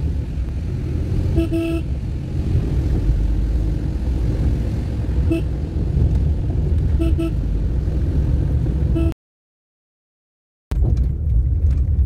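Car engine and tyre rumble heard from inside the cabin, steady and low, broken by short car-horn toots: a double toot about a second and a half in, a single one around five seconds, another double toot around seven seconds and one more just after nine. The sound then cuts out for about a second and a half, and the rumble returns rougher, with small rattling clicks.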